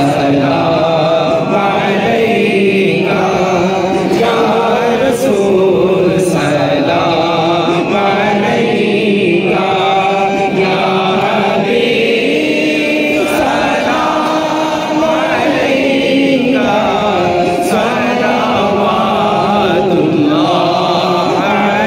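A man singing an unaccompanied Islamic devotional chant (naat) into a microphone, in long melodic phrases with wavering, ornamented pitch and short breaths between them.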